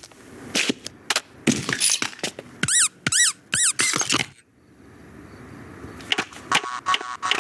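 Animated-film sound effects: a run of sharp knocks and scuffling clicks, with three quick squeaks gliding up and down in pitch about three seconds in. Near the end comes a hiss with more clicks and a short ringing tone.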